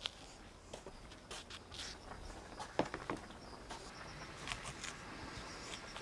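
Faint scattered clicks and light scrapes of handling at a wooden cutting board, ending with a metal spoon scraping out the core of an Asian pear.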